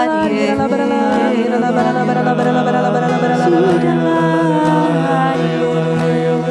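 Slow worship song: voices singing long, held notes, some with vibrato, over sustained accompaniment.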